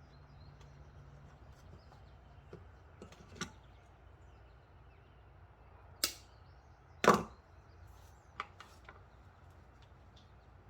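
A few short clicks and knocks of hand tools and wire being handled while a wiring harness is put together. The two loudest come about six and seven seconds in.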